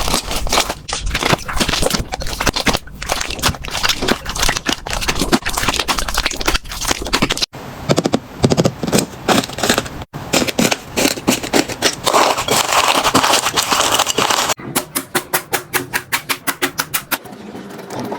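Slime being squeezed and worked by hand, making dense crackling and popping. There are a few abrupt changes between takes. Near the end comes a quick, even run of pops, several a second, that fades away.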